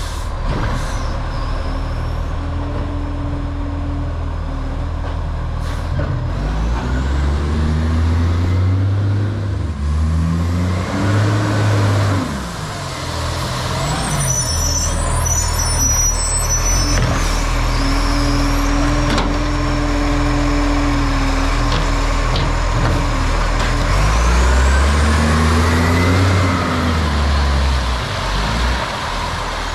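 Garbage truck's diesel engine running with an exhaust leak, revving up twice and settling back between the revs.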